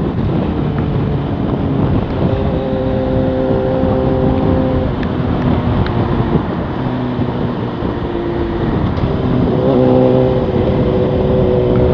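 Suzuki GSX-R motorcycle's inline-four engine running at cruising speed with steady wind rush, heard from a microphone inside the rider's helmet. The engine tones hold steady and shift in pitch in small steps every couple of seconds.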